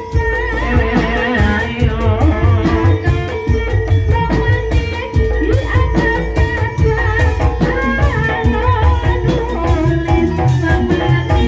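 Gending ebeg: live Javanese gamelan music accompanying a kuda kepang dance, with quick drum strokes over ringing metallophone tones and a singer's voice.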